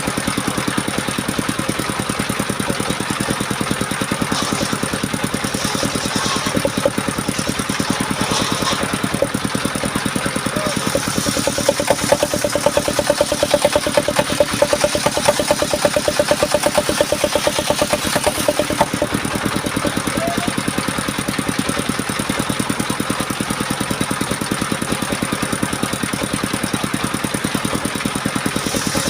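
Small engine of a homemade portable circular sawmill running steadily, with a rapid, even beat of firing strokes. It grows somewhat louder for several seconds in the middle.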